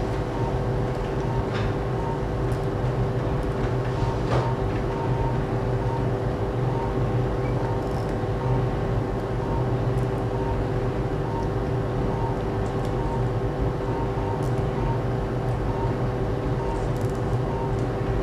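Steady hum of operating-room equipment, with two steady tones and a faint short beep repeating about twice a second.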